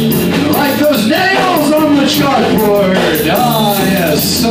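A band playing rock music live: electric bass and drum kit with cymbals, under a melodic line that slides up and down in pitch.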